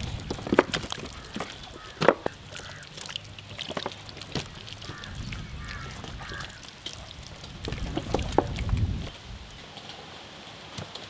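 Wet squelching, slapping and clicking of hands rubbing a thick masala marinade into whole raw chickens on a steel tray, with a few sharp slaps.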